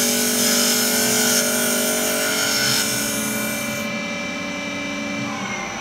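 CNC wood lathe running, its motor whining with the hiss of the cutter turning wood. The cutting hiss stops about two-thirds of the way through, and near the end the whine falls in pitch as the spindle slows.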